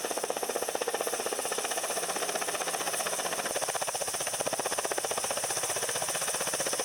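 Ka-52 attack helicopter's coaxial rotors beating in a rapid, even pulse, with a steady high turbine whine over it.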